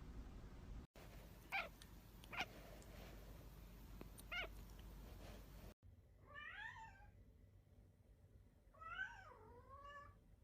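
Cat meowing twice in the second half, each meow rising and then falling in pitch, the second one longer. Earlier come three short, high, sharp sounds about a second apart, all faint.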